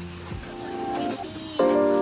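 Background music of sustained chords, swelling louder with a new chord about one and a half seconds in.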